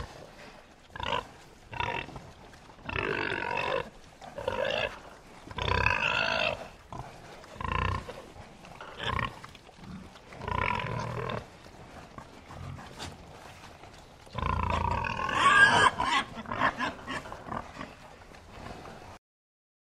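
Pigs grunting in a series of short separate calls, with a longer, louder call about fifteen seconds in; the sound cuts off suddenly shortly before the end.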